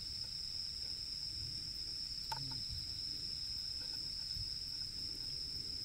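Crickets and other night insects chirring in a steady, high-pitched chorus, with a brief faint click about two seconds in.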